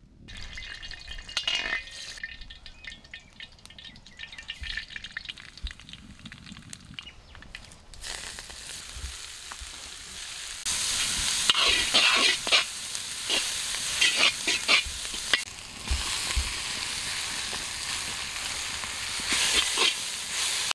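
Food frying and sizzling in a pan while it is stirred, with the scrape and knock of a utensil against the pan. It starts quietly with scattered clicks, then the sizzle swells about eight seconds in and grows louder a few seconds later.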